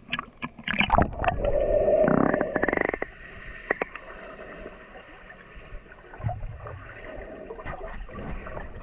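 Water splashing and sloshing around the camera, loudest for about two seconds near the start, then lower gurgling with scattered small splashes.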